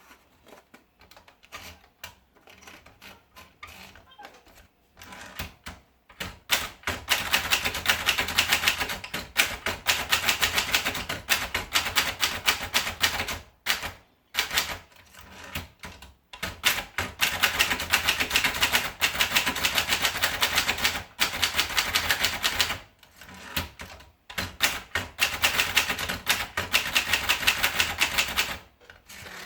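Antares Compact 223 typewriter being typed on: a few scattered key clicks at first, then three long runs of fast, sharp keystrokes separated by short pauses.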